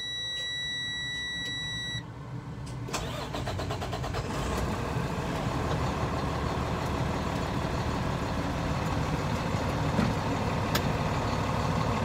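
A steady high electronic warning tone from the dash sounds and cuts off about two seconds in. Then the starter cranks the Freightliner M2's Cummins ISL9 inline-six diesel, which fires about four seconds in and settles into a steady idle.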